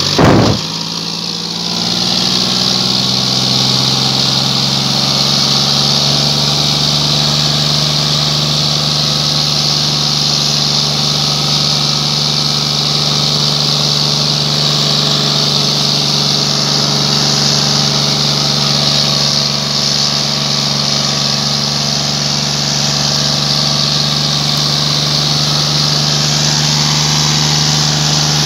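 John Deere 5039D tractor's three-cylinder diesel engine running steadily under load while pulling a cultivator through dry soil, with a steady hiss above the engine note. A single loud thump comes right at the start; the engine sound dips briefly after it and is steady again from about two seconds in.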